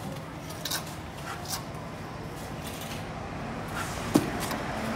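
Steel shovel scraping and turning a pile of wet cement mix on the ground, a few separate scraping strokes, with one sharp knock about four seconds in, over a steady low background noise.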